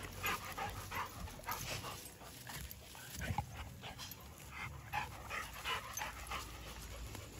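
Labrador dogs panting and whimpering close by, in short, uneven bursts.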